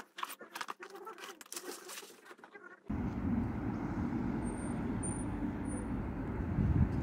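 Rustling and small knocks of a backpack being packed, then, after a sudden cut about three seconds in, a steady low outdoor rumble of street traffic that swells briefly near the end, with a few short high bird chirps.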